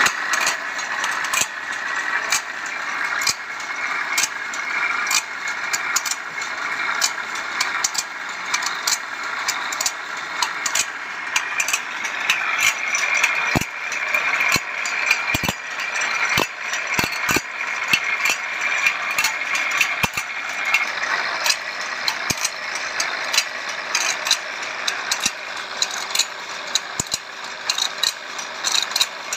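Automatic band saw blade sharpening machine running: a steady grinding noise with a constant high tone, and a sharp click about once a second as the blade is stepped on tooth by tooth under the grinding wheel.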